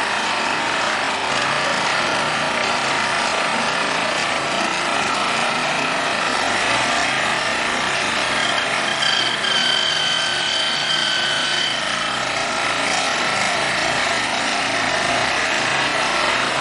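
Steady, harsh mechanical running noise, with a high whine that comes in about eight and a half seconds in and fades out about three seconds later.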